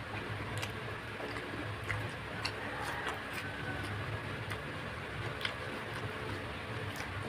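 Close-up eating sounds: scattered wet clicks of chewing and of fingers mixing rice with pork fry on a banana leaf, over a steady low hum.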